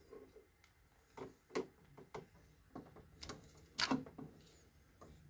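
A string of small, quiet clicks and taps, irregularly spaced, as the plastic parts and circuit board of a 3D printer's print head are handled and pried at by hand.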